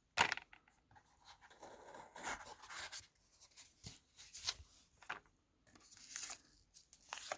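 Light rustling and scattered small clicks of packaging and the watch being handled during unboxing.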